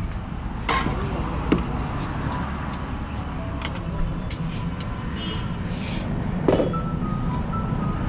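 Stainless steel thali plates clinking as they are handled and set down on a food cart's counter: a few sharp clinks, the loudest about a second and a half in and near the end. Underneath is a steady low rumble of street traffic.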